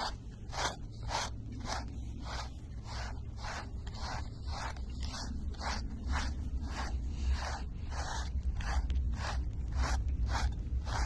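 A hand stroking or scratching a dog's fur in quick, even strokes, about two a second, over a low steady hum.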